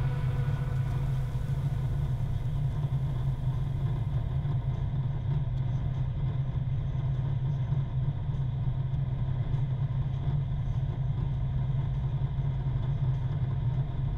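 A 4x4 cruising on a motorway: its engine and tyres make a steady low drone, heard from inside the vehicle.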